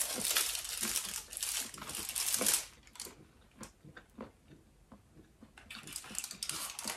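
Plastic chocolate packaging crinkling and crackling as it is handled: a long stretch of rustling for the first couple of seconds, then scattered small crackles, then rustling again near the end.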